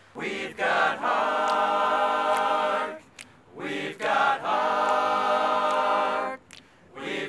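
A group of voices singing in harmony, holding two long chords of about two seconds each, with short sung notes between them.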